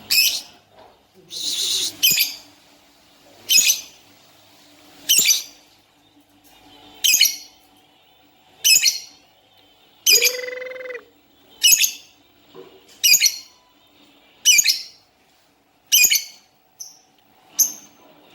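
Lovebird giving short, shrill calls over and over, one about every one and a half seconds. A brief lower, steady tone sounds about ten seconds in.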